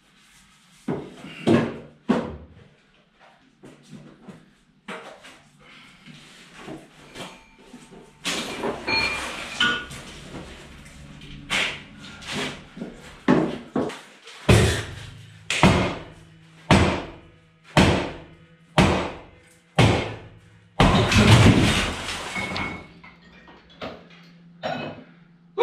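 Heavy hand-hammer blows on a concrete staircase, scattered at first and then about one a second, followed about 21 seconds in by a long loud crash as the concrete stair flight breaks away and falls.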